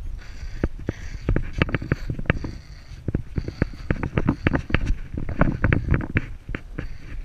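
Miniature poodle puppy playing tug of war with a rope toy on stone paving: rapid, irregular clicks and scuffs from its claws and the tugged rope, thickest in the middle. Under them runs a low rumble of the camera being jostled.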